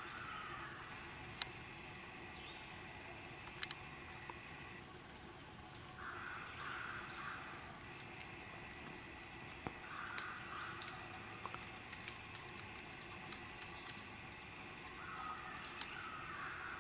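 Steady high-pitched drone of summer insects in the woods, with a bird calling in short runs of calls every few seconds. There are a couple of faint ticks.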